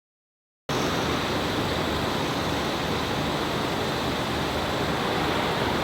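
Steady rushing background noise with no tone or rhythm in it, starting abruptly just under a second in.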